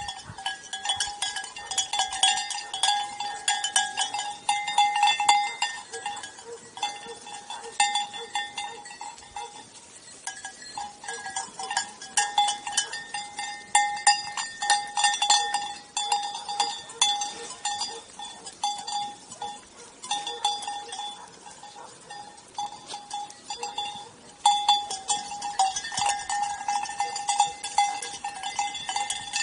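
Bells on a grazing flock of sheep ringing and clanking, a steady ringing tone broken now and then for a moment, with many sharp clicks and clanks as the sheep move their heads.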